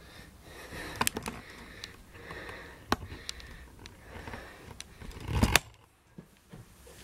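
A person breathing hard close to the camera microphone, catching their breath, with a few sharp clicks and a louder handling rustle about five and a half seconds in.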